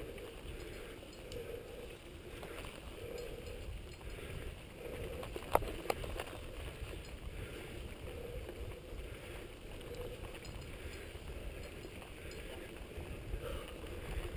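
Mountain bike riding down a dirt singletrack: steady rumble of the tyres and rattle of the bike over the trail, with one sharp knock about five and a half seconds in.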